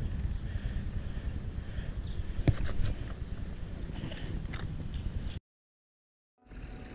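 Low wind rumble and rustling handling noise on a body-worn camera's microphone as wet clothing is gripped and worked by hand, with scattered clicks and a sharp knock about two and a half seconds in. The sound cuts out to dead silence a little after five seconds in, at an edit.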